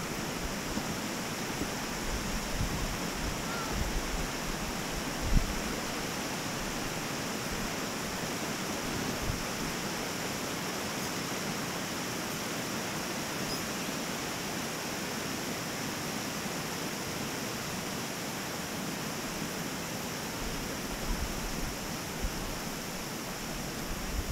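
Steady rushing of creek water flowing below, with a single thump about five seconds in.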